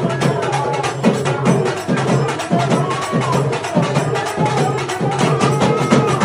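Music with fast, steady percussion, many strokes a second, under a melody line.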